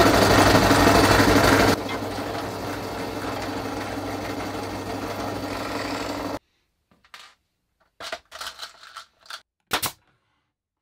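Bench drill press motor running steadily while its bit drills through a wooden board, louder for the first two seconds; it cuts off abruptly about six seconds in. After that come a few light clicks and one sharp snap of a brad nailer firing near the end.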